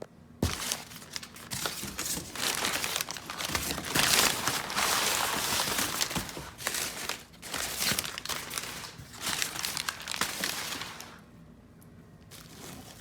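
Packing wrap crinkling and rustling as a box of long-tube exhaust headers is unpacked, for about eleven seconds before it dies down.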